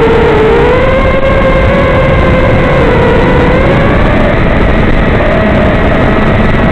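Four brushless motors of a 5-inch FPV quadcopter (2206 size, 2522kV) whining at cruise throttle. The pitch comes back up from a brief dip at the start, then holds fairly steady with slight wavering, rising a little after the middle.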